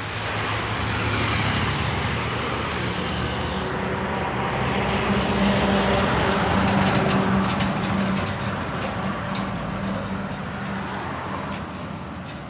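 Road traffic passing: engine and tyre noise, with one vehicle's engine drone swelling to its loudest about halfway through and then fading.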